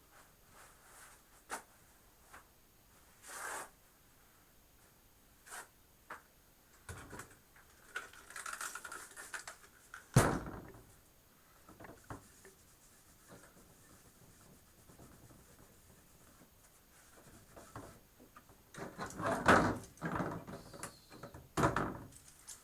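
Objects being handled and set down on a work surface: scattered clicks and light knocks, one sharp knock about halfway through, and a busier run of handling noise near the end.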